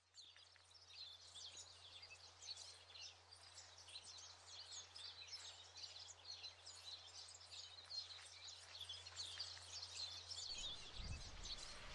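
Faint chorus of many small birds chirping, growing slowly louder, over a low steady hum that stops shortly before the end.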